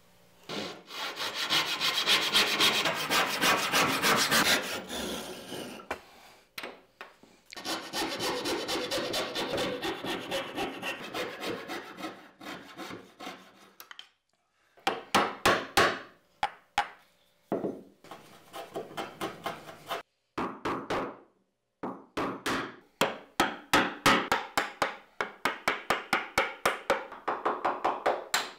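Tenons being cut by hand in a walnut tabletop: runs of rhythmic back-and-forth hand-tool strokes rasping through the wood, fast and continuous at first, then in separate bursts of about two to three strokes a second. A chisel pares the wood down to the marked lines.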